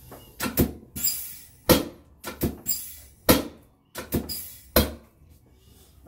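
A rapid, irregular series of about a dozen sharp clacks and thumps from a hands-on chiropractic adjustment, the chiropractor's hands thrusting on the patient's lower back as she lies on the treatment table.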